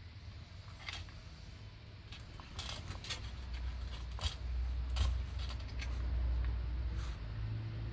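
About half a dozen small, sharp clicks and taps at irregular intervals over a steady low hum. The hum grows louder about halfway through.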